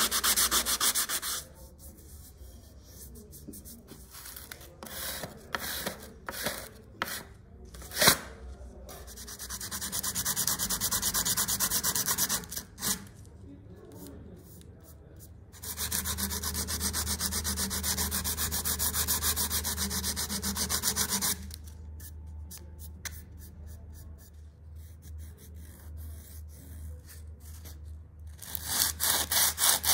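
Abrasive sanding on the steel of a vintage Wilton C-clamp, in stretches of several seconds of fast, even rubbing. Between the stretches are small clicks and knocks as the piece is handled, with one sharp knock about eight seconds in.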